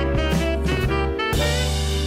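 Background jazz music: a saxophone melody over drums and a steady bass.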